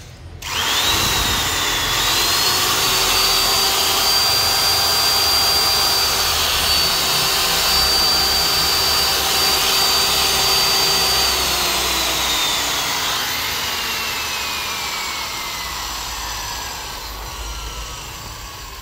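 530 W corded electric drill switched on: its motor whines up to speed about half a second in, runs steadily for about ten seconds, then is let off and winds down with a slowly falling whine. The seller says its carbon brushes spark on both sides.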